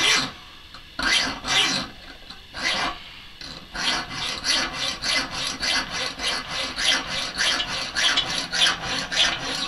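Hand hacksaw cutting a notch in a steel bar, the blade rasping on the metal. A few slow, separate strokes come first, then from about four seconds in a steady back-and-forth of about three strokes a second.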